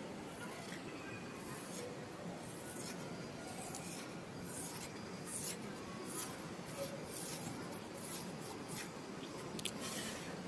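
Faint background ambience: a steady hiss with scattered soft clicks and rustles.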